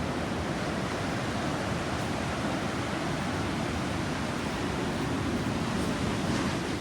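Ocean surf washing onto a pebble beach, heard as a steady, even rush of noise.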